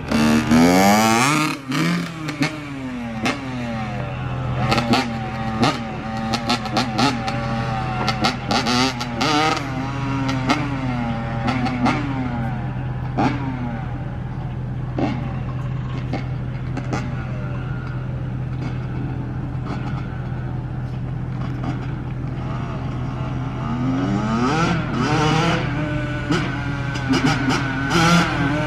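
Yamaha YZ85 two-stroke single engine warming up after a cold start, its throttle blipped over and over so the revs rise and fall. It settles to a steadier idle in the middle, and the revving picks up again near the end.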